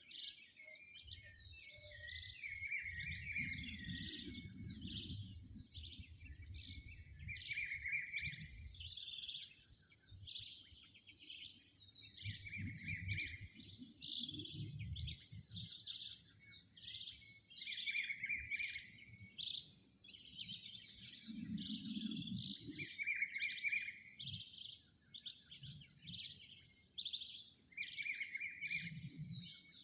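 Birds singing and calling over and over in a dawn chorus, with one louder repeated call about every five seconds. A steady high-pitched tone runs underneath, and low rumbles come and go.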